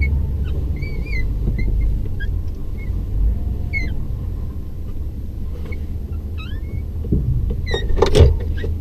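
Low, steady rumble of a truck's engine and road noise heard inside the cab as it is manoeuvred at low speed, with faint short high squeaks scattered through it and a brief louder clatter about eight seconds in.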